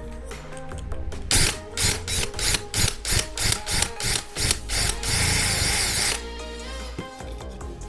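Small power drill boring out a rivet on a diecast toy car's base: short pulses of the drill, about three a second, then a steady run of about a second that cuts off suddenly. Background music plays throughout.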